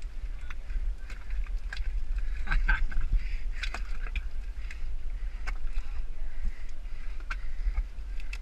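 A person crawling through a wet mud trench with a body-worn action camera: scraping and knocking of the camera housing against the mud, with a steady low rumble of handling noise and many scattered clicks, busiest about three seconds in.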